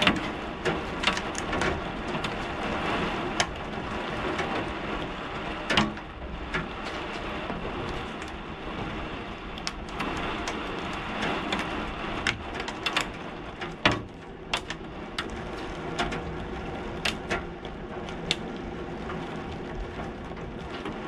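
Hailstones striking window glass during a heavy storm: irregular sharp knocks over a steady hiss of rain and wind, with a louder knock about 6 seconds in and the loudest about 14 seconds in.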